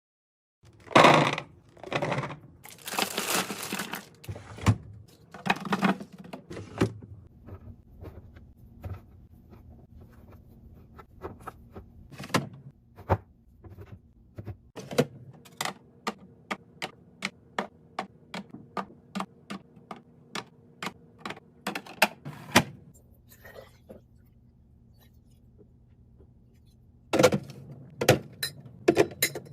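Knocks, clacks and scrapes of containers and packaged items being handled and set down while a fridge is restocked, then a long run of quick clicks and taps about two a second over a steady low hum.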